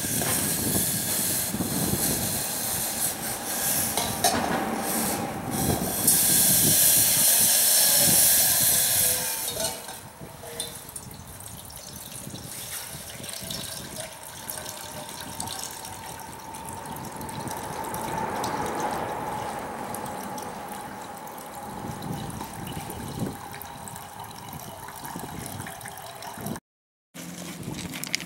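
Water poured into a steel cooking pot on a small canister gas stove, with a hiss that is loudest over the first ten seconds and then goes on quieter and steady.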